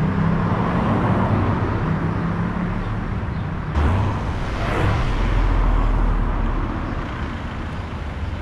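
Road traffic: cars driving past, engines and tyres, with one passing close about four seconds in.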